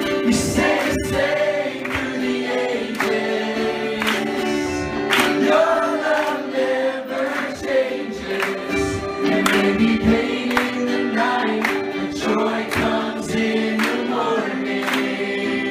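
A choir of many voices singing a song together over a steady beat of about two strokes a second.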